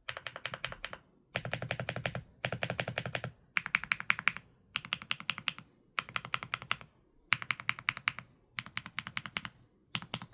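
Typing on a VGN NUT65 mechanical keyboard: fast runs of keystrokes in bursts of about a second, with short pauses between them.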